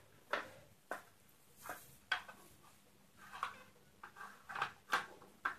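Fluorescent tube being handled and its end pins pushed into the batten's plastic lampholders: a string of light, irregular clicks and taps of glass and plastic.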